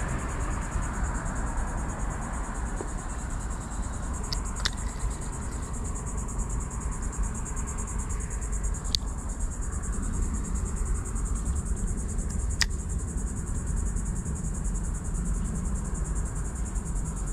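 Steady, high-pitched chorus of insects, a fast-pulsing buzz that carries on without a break, over a low rumble. Three brief sharp clicks stand out, about five, nine and thirteen seconds in.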